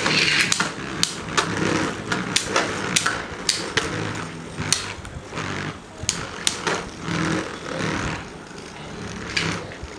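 Two Beyblade Burst spinning tops, Dynamite Belial Nexus Venture-2 and Brave Valkyrie, whirring and scraping around a plastic stadium, with irregular sharp clacks each time they collide.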